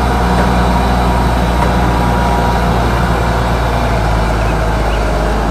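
Grove RT530E rough-terrain crane's diesel engine running steadily, a loud, even, low engine drone.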